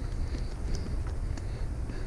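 Vehicle running with a steady low rumble, a few faint clicks over it.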